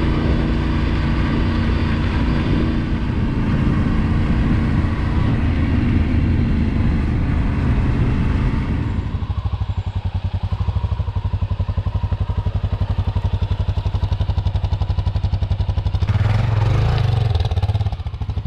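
Yamaha Ténéré 700's parallel-twin engine running under way, then about halfway through easing off to a lower, steady pulsing beat, with a short rise in revs near the end.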